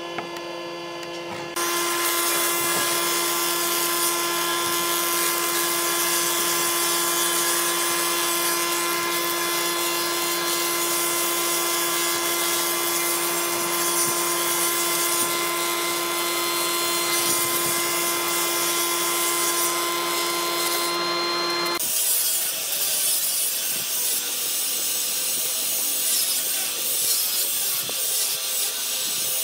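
A woodworking planer runs with a steady hum as wooden strips are fed through it, then cuts off suddenly about three quarters of the way in. After it, a handheld grinder with a sanding disc sands the edge of a wooden panel, a rougher, wavering noise.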